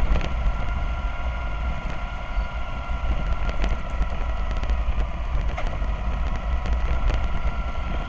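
Interior running noise of a Citybus Enviro400 double-decker bus: a steady low engine rumble with a faint steady whine above it and scattered light rattles.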